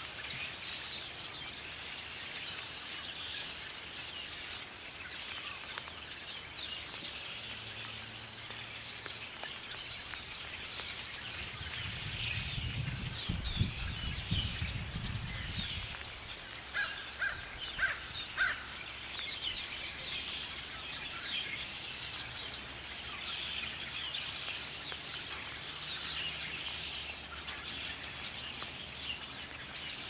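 A large flock of birds gathered before migration, many calling at once in a dense, continuous chirping chorus. A few louder, lower calls stand out just past the middle. A low rumble runs for a few seconds midway.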